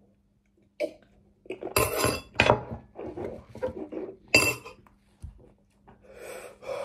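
Metal fork clinking and scraping against a ceramic bowl, with a drinking glass set down on the table: a run of sharp clinks and knocks from about a second in to about five seconds in.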